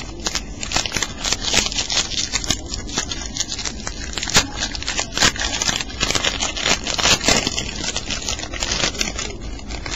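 A trading-card pack's wrapper crinkling and rustling as it is opened and handled, a dense run of irregular crackles, close to the microphone.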